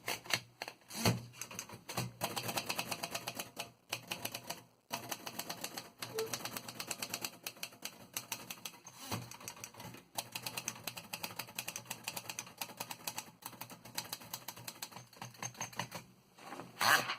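Royal Aristocrat portable typewriter from 1940 being typed on: fast runs of sharp key and typebar clicks with short pauses between them. A louder clatter comes near the end.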